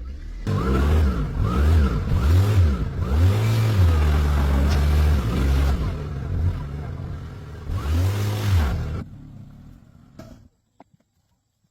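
A car engine being revved in a series of short blips that rise and fall in pitch, then one longer held rev and a last blip. The engine sound dies away and stops about a second before the end.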